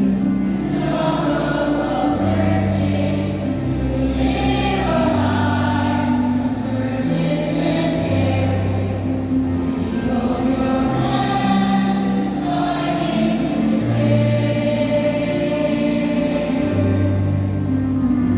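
A choir singing a slow, hymn-like song in long held chords, with a low accompanying line under the voices.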